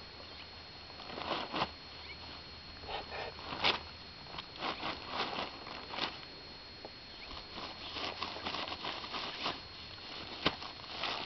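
An old tarp crackling and rustling in irregular bursts as a horse noses and paws at it and a goat steps about on it.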